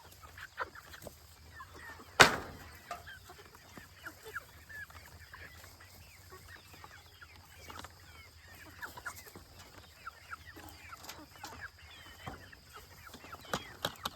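Young chickens peeping and clucking in many short, quick calls, with one sharp knock about two seconds in.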